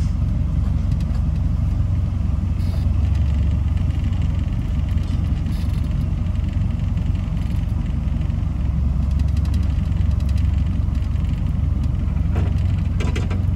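Ford F1000 pickup's turbodiesel engine running at low revs, a steady low rumble heard from inside the cab as the truck moves off slowly.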